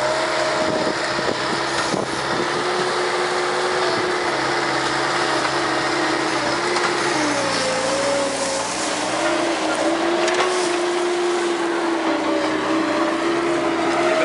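Bobcat S185 skid steer's diesel engine running steadily while it drives a Brushshark hydraulic tree shear through a cedar. The engine note dips for about a second near the middle and then recovers.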